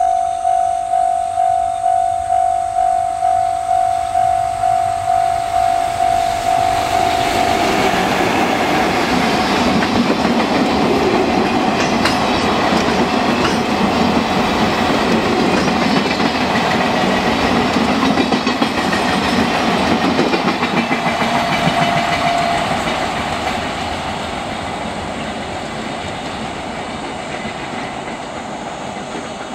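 Level-crossing warning bell ringing in a steady ding-ding, about twice a second. About seven seconds in, a freight train hauled by an EF66 electric locomotive passes over the crossing, its wagon wheels clattering over the rail joints. The train noise dies away gradually over the last several seconds.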